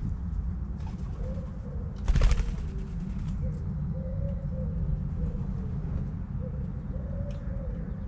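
White-winged doves cooing in a low, wavering run of notes. About two seconds in there is a brief loud flutter, as of a dove's wings taking off.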